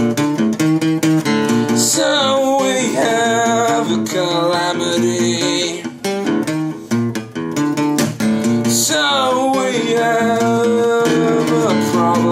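A song with strummed acoustic guitar throughout and a sung vocal line coming in about two seconds in and again near nine seconds in.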